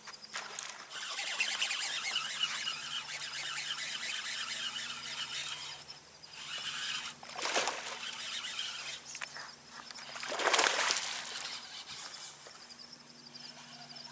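Birds chirping and calling in a dense chorus, with two brief whooshing surges about seven and ten seconds in, over a faint low steady hum.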